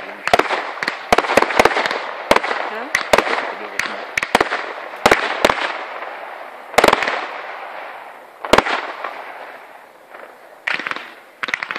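Fireworks display: a rapid run of sharp aerial shell bursts with crackling between them, thinning out in the second half, with two heavier bangs later on.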